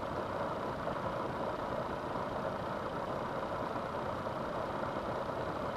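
Steady background hum and hiss with no distinct events.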